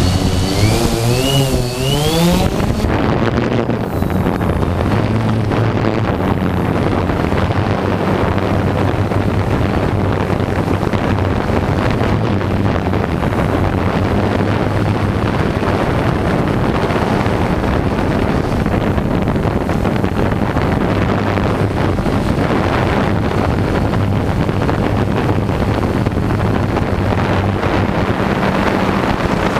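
Quadcopter drone's motors spinning up for takeoff, their pitch rising over the first couple of seconds. Then a steady propeller buzz with wind rushing on the microphone.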